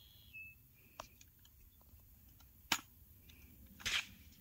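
Sharp clicks and a rattling clack of an AR-style 300 Blackout rifle's action being handled: a faint tick, then one sharp click past the middle and a clack near the end. The rifle is being worked by hand because the subsonic round failed to cycle the action.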